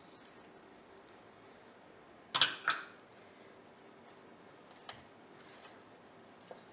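Two short, sharp clinks about a third of a second apart, like a dish or utensil knocking, then two faint ticks.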